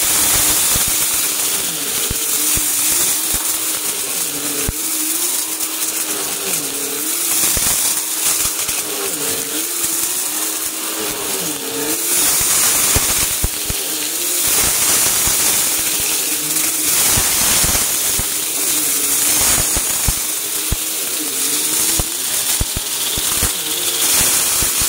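Upright vacuum cleaner running over carpet, sucking up scattered dry granular debris with a crackling crunch as the particles rattle up into the machine. The motor hum wavers in pitch as the head is pushed back and forth.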